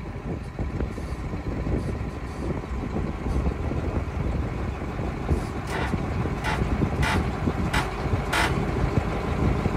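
Heavy diesel machine running steadily as it slowly lifts a load, with five short hisses in the second half.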